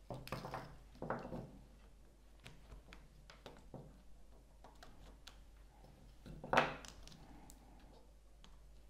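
Quiet handling of test leads and small plastic parts on a table, with faint scattered clicks and rustles. One louder click comes about two-thirds of the way through, as a 4 mm banana plug is pushed into the circuit tester's jack.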